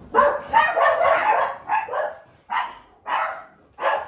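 A dog barking: a quick run of barks, then single barks about every half second.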